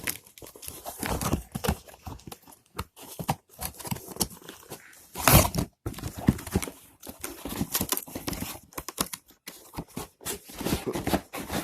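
A cardboard box and its packaging being pulled open by hand: irregular rustling, tearing and knocks, with one louder bump about five seconds in.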